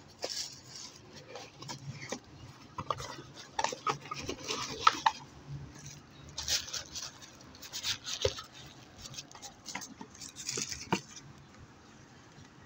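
Unboxing handling noise: irregular rustling of packaging and sharp clicks and taps of plastic and hard parts being handled, dying away near the end.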